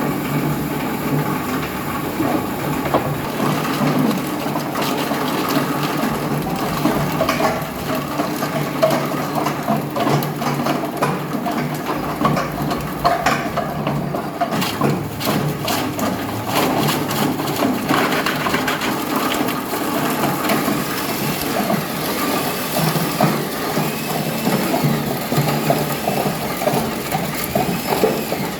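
Plastic crusher machine running and chopping plastic: a steady motor and rotor hum under constant irregular cracking and clattering of plastic pieces being cut.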